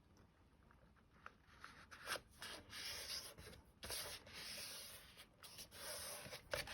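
Sheet of designer paper being folded and its crease rubbed down: faint, uneven dry rubbing and rustling that starts about a second and a half in.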